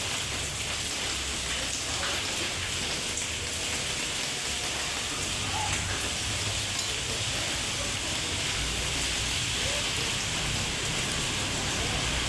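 Steady rain falling, an even hiss with no pauses. A low rumble sets in about two-thirds of the way through and carries on under the rain.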